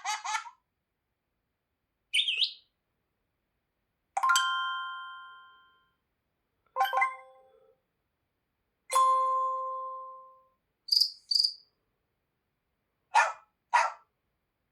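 Tecno Pop 2F smartphone notification tones played one after another, each followed by about two seconds of silence. In turn come a quick upward chirp, a bell-like chime that rings out for over a second, a short tone, a second ringing chime, a quick pair of high blips, and near the end a double beep.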